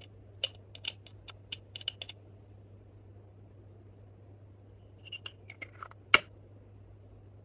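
Metal spatula clicking and scraping against a small plastic makeup case as green product is scooped out: a quick run of sharp ticks in the first two seconds, then another run ending in a louder click about six seconds in.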